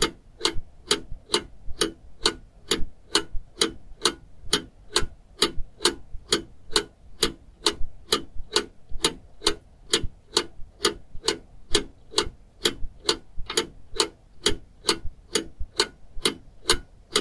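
Steady mechanical ticking, about two to three sharp ticks a second, each with a short hollow knock under it, going on evenly without a break.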